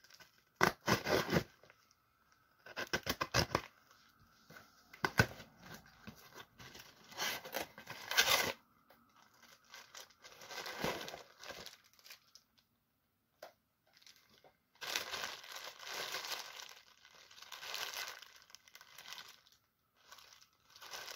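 Packing tape being cut and ripped off a cardboard parcel in several short tearing bursts, followed by the rustle and crinkle of plastic packaging as the contents are pulled out of the box.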